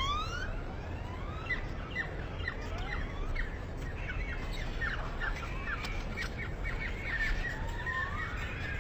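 A large flock of birds calling all at once: long rising whistles overlap with a dense chatter of short, sharp calls.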